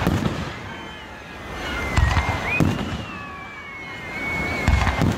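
Aerial fireworks shells bursting overhead: four deep booms, the first at the very start, two close together about two seconds in, and one near the end, with a thin high whistle drawn out between them.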